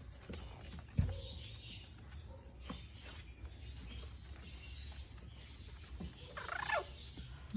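Young Chihuahua puppies squeaking and whimpering, with a louder wavering squeal near the end. A soft thump about a second in.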